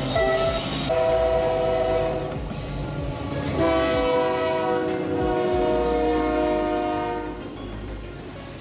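Diesel freight locomotive horn sounding a chord of several notes. The chord drops in pitch as the lead unit goes by at the start, then comes two more long blasts, the second held for about four seconds, over the low rumble of the passing train. Near the end only the rolling of the railcars is left.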